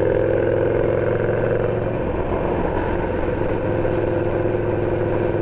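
Harley-Davidson Sportster's V-twin engine running at a steady cruise, its pitch holding even.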